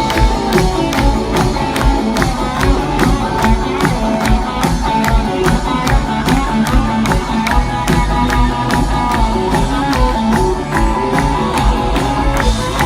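Rock band playing an instrumental passage with a steady drum beat.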